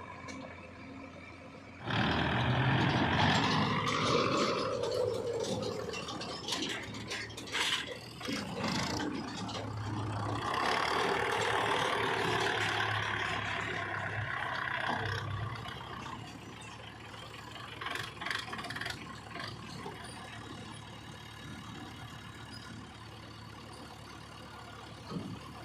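JCB 3DX backhoe loader's diesel engine revving hard under hydraulic load, with scraping and metal clanks, for most of the first half. It then drops back to a steady lower running level with occasional knocks.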